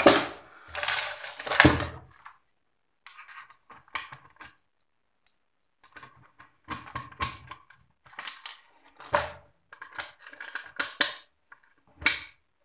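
Irregular clatters, knocks and scrapes of a plywood amplifier box, its front panel and a small lock being handled and fitted together: a dense cluster at the start, scattered smaller clicks after, and a sharp knock near the end.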